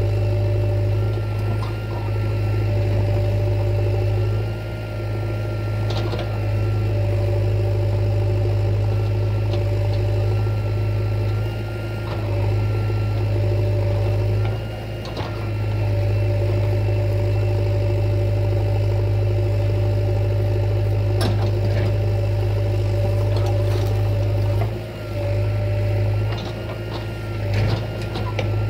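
A heavy machine's diesel engine running at a steady speed. Its note dips briefly several times, and there are a few sharp knocks.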